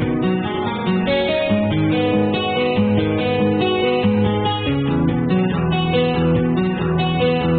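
Music played on acoustic guitar: a steady run of plucked and strummed notes.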